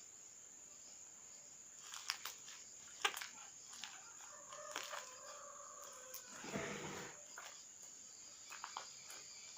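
Stiff homemade slime being kneaded and mixed by hand, giving scattered sticky clicks and pops with a louder squelch a little past the middle. A steady high-pitched whine runs underneath.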